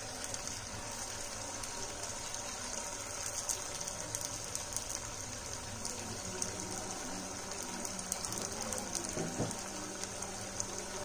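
Food sizzling in hot oil in a pan: a steady hiss with many fine crackles.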